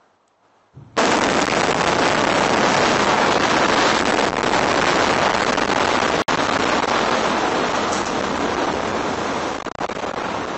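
Controlled demolition of a 116-metre concrete high-rise: the explosive charges go off about a second in and run straight into the loud, continuous noise of the tower collapsing, which eases off a little near the end.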